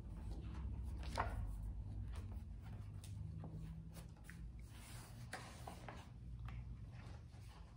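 Pages of a hardcover book being turned and leafed through: faint, scattered paper rustles and soft taps.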